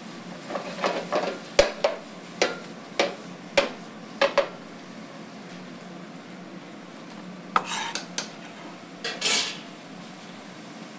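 Metal pans and utensils clattering: about eight sharp clinks and knocks in the first few seconds, then a few more clicks and a short hiss near the end.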